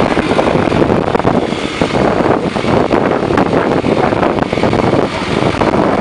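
Truck driving along a rough dirt road, heard from its open cargo bed: a loud, steady rumble of engine, tyres and rushing air, broken by many small jolts and rattles.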